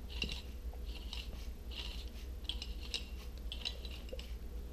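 Faint scraping and rubbing of metal threads in short patches, several times over, as the threaded dial of a METCO Type 2E metalizing gun's speed-control clutch is unscrewed from its pressure plate by gloved hands. A low steady hum sits underneath.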